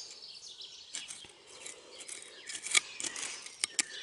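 Small garden hand fork scraping and scooping through loose, crumbly soil. It makes irregular scratchy crunches and a few sharp clicks, the loudest near the end.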